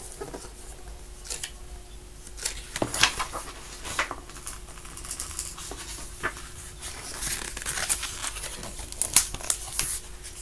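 Paper pages of a picture book being handled and turned: scattered rustles and light taps, busier in the last few seconds.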